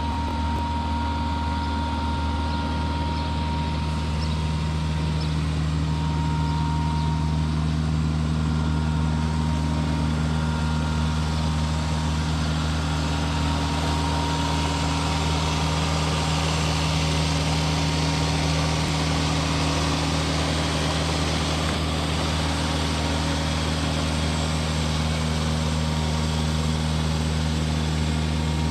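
Takeuchi TL120 skid steer's diesel engine idling steadily; the machine is listed as having an exhaust leak.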